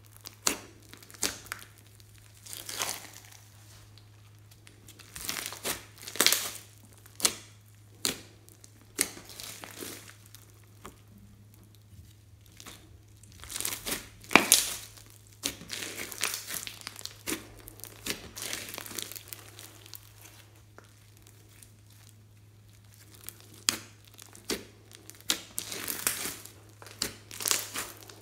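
Hands squeezing and kneading a large lump of sticky slime mixed with foam beads, giving irregular crackling and popping in clusters, with a few quiet pauses between them.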